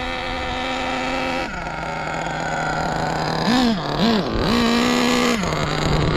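Small O.S. nitro RC engine running on a break-in tank, its main needle leaned a little over an eighth of a turn. It drops from a higher speed to idle about a second and a half in, then gives two short throttle blips and a longer rev about a second long near the middle before settling back to idle.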